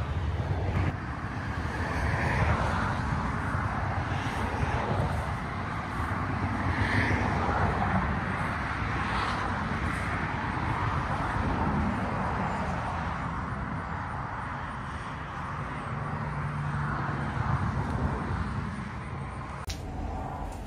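Road traffic: cars passing one after another, each swelling and fading over a steady low rumble.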